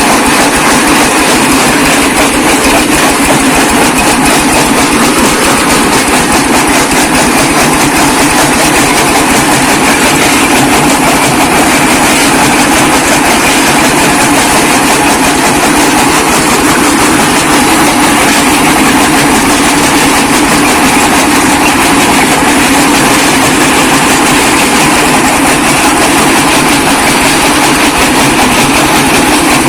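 Small brick breaker (brick crusher) machine running, a loud steady mechanical din with a fast, continuous clatter of brick being broken.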